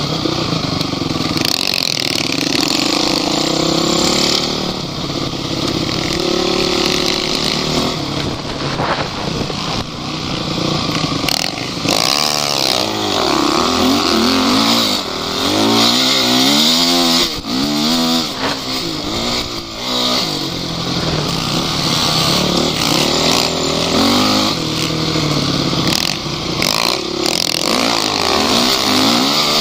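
Off-road vehicle engines revving hard, their pitch rising and falling over and over, with a few sharp knocks.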